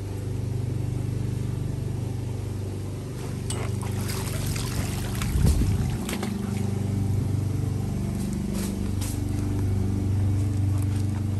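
Water splashing and dripping as wet Alaskan malamutes move about in a shallow paddling pool, with a few splashes near the middle, over a steady low hum.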